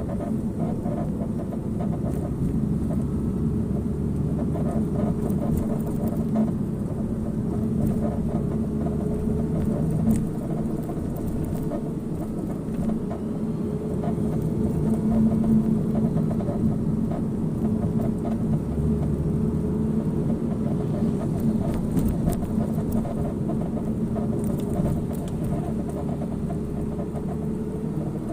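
Porsche 987 Cayman on the move, with steady rumbling road and running noise and a creaking from the front right corner of the car, a new fault whose cause is not yet known.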